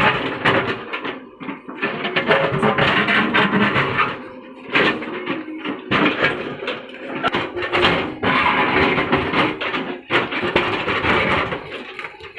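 Music playing, in phrases with short breaks.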